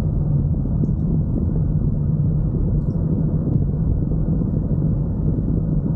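Steady low rumble of a car being driven, heard from inside the cabin: engine and road drone.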